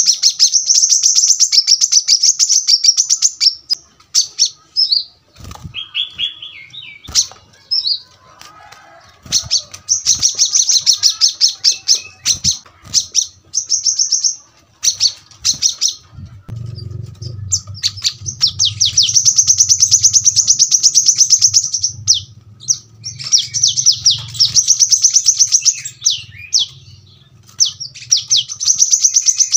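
Brown-throated sunbird (kolibri kelapa) singing in dense, rapid trilled bursts of a few seconds each, broken by short gaps with scattered chirps. This is the close-packed 'tembakan' style of song. A low hum sits underneath from about halfway through.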